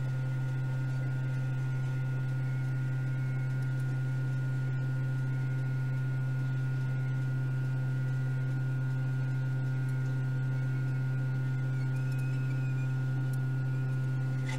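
Hot air rework station's blower running on a low setting, a steady low hum, while it heats a resistor on a laptop motherboard to desolder it.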